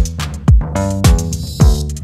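Electronic background music: a kick drum about twice a second under sustained chords.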